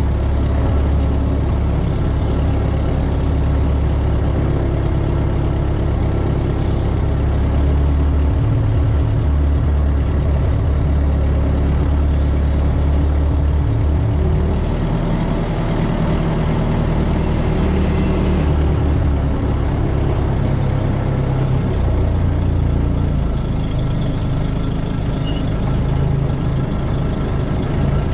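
Heavy engine running steadily, a loud low drone that shifts slightly in pitch a couple of times.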